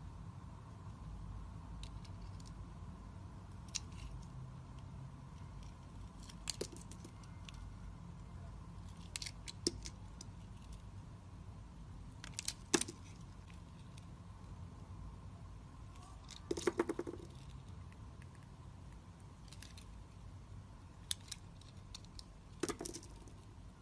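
A knife cutting into a bar of soap: scattered crisp clicks and short crackling scrapes every few seconds, over a low steady hum.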